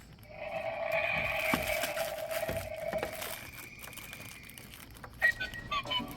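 Electronic sound effects from a toy dinosaur shooting game: a steady synthetic tone lasting about three seconds with a few light clicks, then a quick beeping jingle at changing pitches starting near the end.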